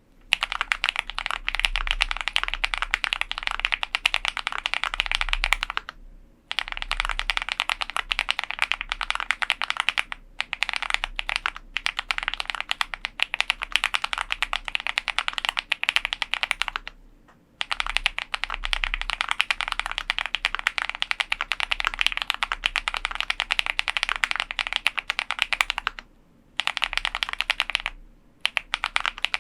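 Fast continuous typing on a custom mechanical keyboard with lubed TTC Holy Panda tactile switches on an aluminium plate, dense clacking keystrokes in long runs broken by a few short pauses.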